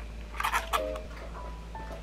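Light background music with a few held and plucked notes, and about half a second in a short burst of plastic food trays being handled and clattering.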